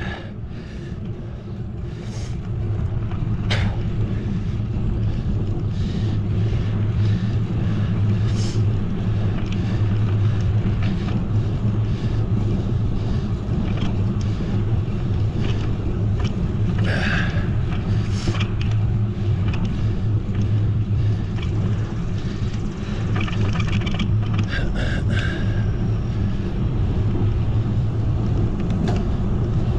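Steady wind and road rumble on the microphone of a bicycle riding along, growing louder over the first few seconds and then holding, with scattered short ticks and knocks.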